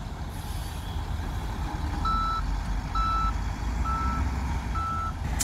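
Reversing alarm on heavy machinery beeping four times, about one beep a second, starting about two seconds in, over the low rumble of diesel machinery running on the site. A short sharp click near the end.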